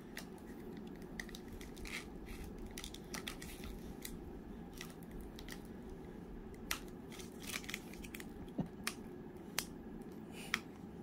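A Topps Gypsy Queen card pack being worked open, with faint crinkling of the wrapper and scattered sharp clicks and snaps, more of them in the second half, over a low steady hum.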